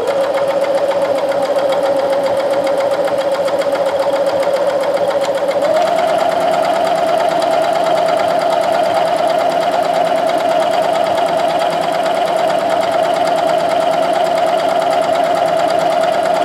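Electric domestic sewing machine running continuously as it stitches a seam, a steady motor hum with the needle's rapid rhythm. A little over five seconds in, its pitch steps up slightly as the machine speeds up.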